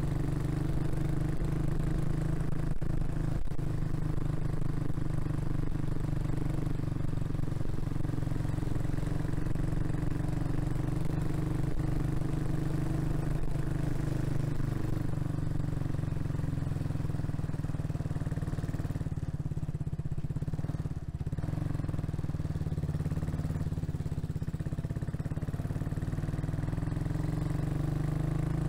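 Kawasaki Estrella's single-cylinder four-stroke engine running steadily as the motorcycle rides along at low speed, heard from the rider's position. The engine note eases briefly about twenty seconds in, then picks up again.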